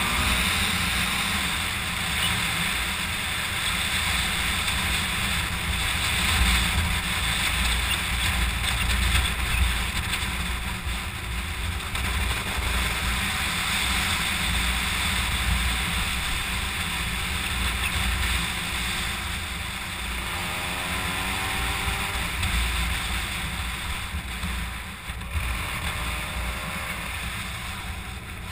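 Small motorcycle running along a road, its engine under heavy wind buffeting on the microphone.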